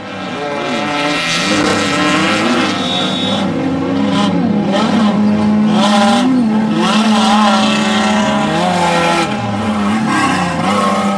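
Off-road race vehicle engines revving and running, several at once, their pitch rising and falling repeatedly under a steady haze of noise. The sound fades in at the start.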